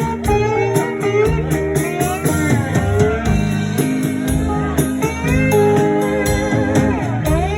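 Live rock band playing an instrumental break: a lead electric guitar plays bending, gliding blues notes over bass and a steady drum beat.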